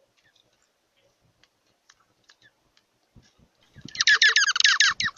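Faint scattered clicks and taps, then near the end a bird's loud, rapid chattering call: a fast run of short repeated notes, about ten a second, with a few soft thuds beneath.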